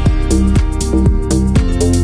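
Electronic background music with a steady beat and bass notes that slide down in pitch.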